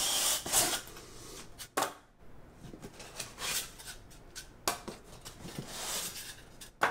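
Cardboard scraping and rustling as a boxed set is worked loose from inside a corrugated shipping carton, with a few sharp knocks of card against card.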